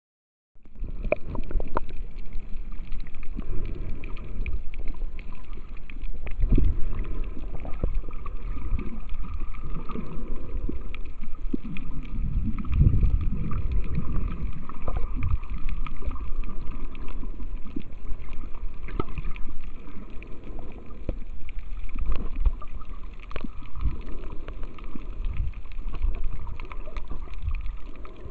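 Underwater water noise picked up by a submerged camera: a muffled, uneven low rumble of moving water with scattered clicks and a faint steady hum above it.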